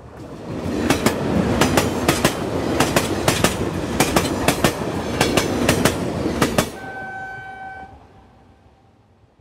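Train passing by: a loud rumble with rapid clattering of wheels over rail joints, which stops abruptly about two-thirds of the way through. A steady pitched tone follows for about a second, then the sound fades away.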